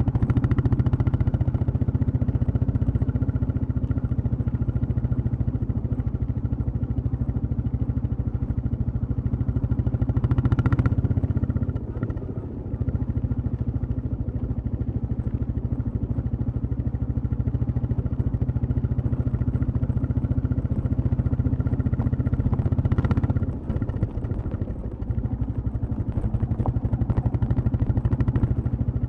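Royal Enfield Classic 350 single-cylinder engine and exhaust running while the motorcycle is ridden, with a steady low thump. The engine note rises about ten seconds in and again about twenty-three seconds in, each time dipping briefly just after as the throttle eases.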